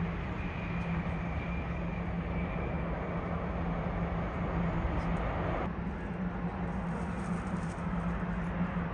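Airliner jet engines heard from a distance: a steady rumble and hiss with a low hum and a faint high whine. About six seconds in the sound changes abruptly, and from then on it is the engines of a Boeing 787-9 on final approach.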